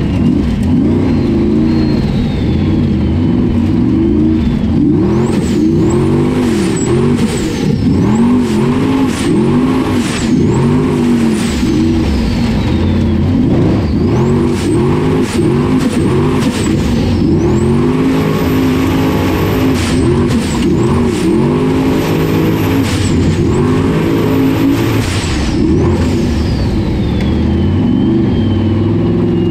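Formula Offroad buggy's engine heard on board, revving up and down over and over as the throttle is worked, with a high whine that rises and falls with the revs. In the second half the revs are held high for a couple of seconds, twice.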